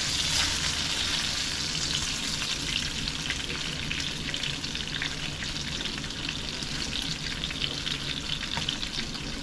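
Flour-dusted walleye fillets sizzling in hot oil in a frying pan: a steady hiss with scattered little crackles and pops.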